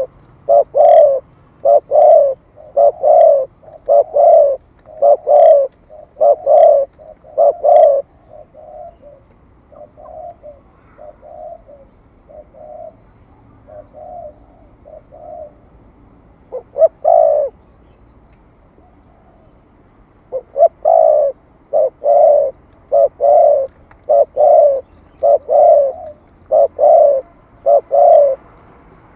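Spotted dove cooing in the rapid 'thúc gù' style: runs of low coos about two a second, loud at first, then a softer run through the middle, then loud again near the end.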